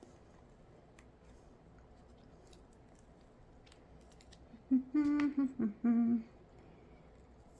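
Low room tone with a few faint clicks, then about five seconds in a woman makes a few short hummed "mmm" sounds of enjoyment while eating.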